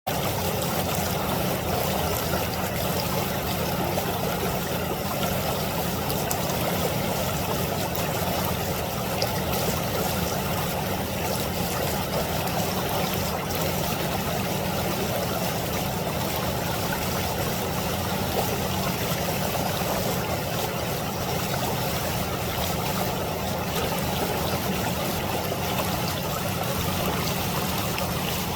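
Flowing stream water, a steady rush that keeps on without a break.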